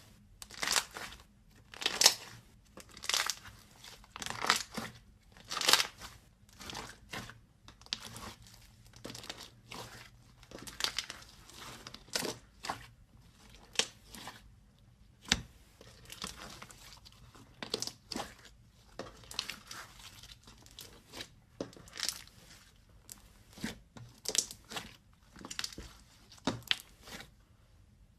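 Hands squeezing and pressing slime: a string of short, crackly squishes about once a second, the loudest in the first few seconds.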